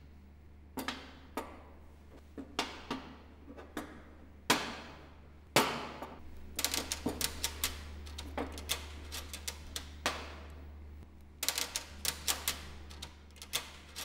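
An irregular series of sharp clicks and taps, some in rapid clusters and a few louder strikes that ring briefly, over a steady low hum.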